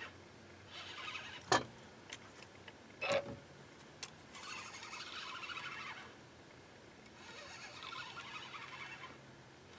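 Fishing reel being cranked in two spells of steady whirring as a hooked blue catfish is brought in, with two sharp knocks in the first few seconds.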